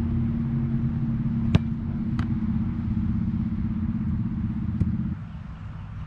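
A motor vehicle's engine running steadily as a low hum, stopping suddenly about five seconds in, with three short sharp knocks over it.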